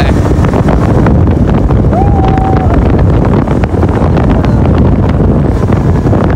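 Heavy wind buffeting the microphone while travelling along a road in a moving vehicle, with a short held tone about two seconds in.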